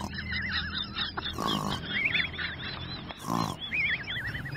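Dog howling in long, warbling calls that waver up and down in pitch, with two short, louder bursts about a second and a half in and again a little after three seconds.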